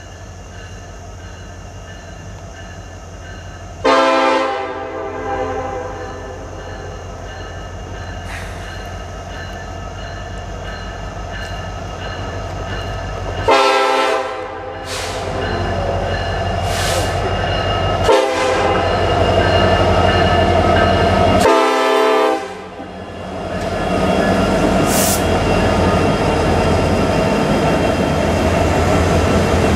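Norfolk Southern diesel freight locomotives approaching and sounding the air horn in the long-long-short-long grade-crossing signal, over the low rumble of the diesel engines, which grows louder. The train then passes close by, with engine and rolling noise loud near the end.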